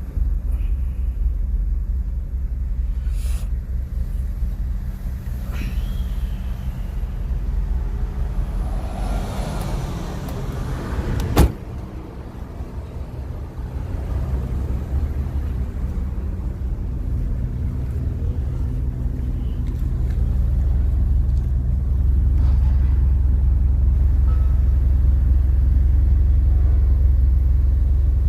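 Honda D16Y1 1.6-litre four-cylinder VTEC engine running steadily, with no rod knock, which the owner credits to a Blue Devil sealant fix. A single sharp click comes about eleven seconds in, and the engine sound grows louder from about twenty seconds.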